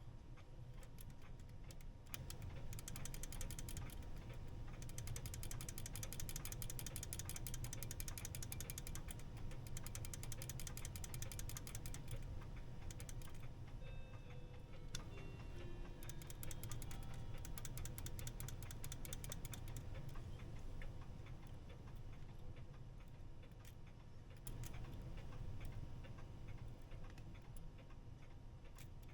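Herschede clock movement giving long runs of very rapid ratchet-like clicking, twice, with a few short faint tones between the runs. The movement is not getting enough power to keep running.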